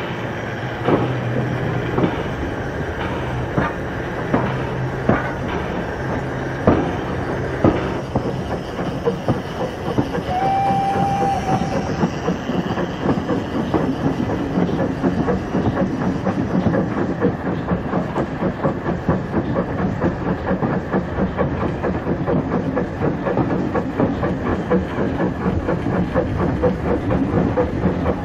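00 gauge model trains running on the layout's track, wheels clicking over the rail joints, with separate clicks at first and quicker, denser clicking in the second half. A short whistle-like tone sounds about ten seconds in.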